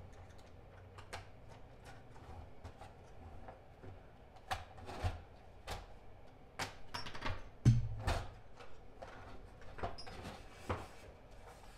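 Irregular plastic clicks, scrapes and snaps as a pick tool works loose the retaining clips of a power socket in a plastic dash trim bezel. The clicks come more often in the second half, and the loudest is a dull knock about eight seconds in.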